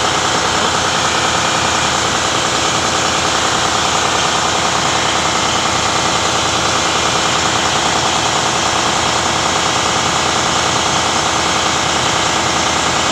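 Turbocharged diesel engine running loudly and steadily, with a fast, even rhythmic clatter.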